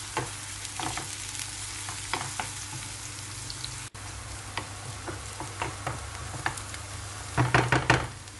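Onion, garlic and diced red capia pepper sizzling in oil in a nonstick frying pan, stirred with a wooden spoon that scrapes and clicks against the pan. A few louder knocks come near the end.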